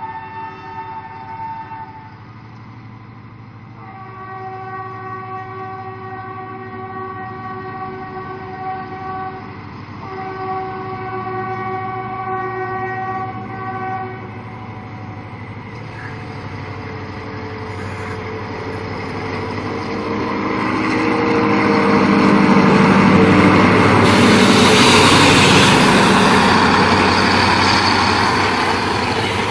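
EMD GL26MC diesel locomotive's multi-note air horn: one blast ends about two seconds in, then two long blasts follow. Then the locomotive's diesel engine, working hard under load with heavy smoke and exhaust flames, grows louder as it draws near and is loudest as it passes close by near the end.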